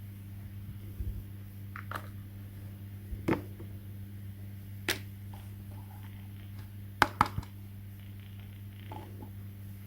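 Scattered light clicks and taps of small objects being handled, two or three in quick succession about seven seconds in, over a steady low hum.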